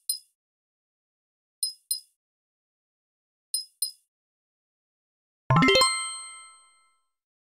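Sound effects: three pairs of short, high clicks about two seconds apart, then a bright chime about five and a half seconds in, several ringing tones together that fade over about a second and a half.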